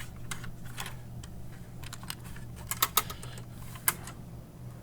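Scattered clicks and taps of small payphone parts being handled, with a quick cluster of about three sharper clicks about three seconds in and another click near the end, over a low steady hum.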